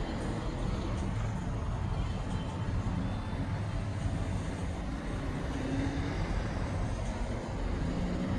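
Steady road traffic noise from vehicles running past, with a low engine drone.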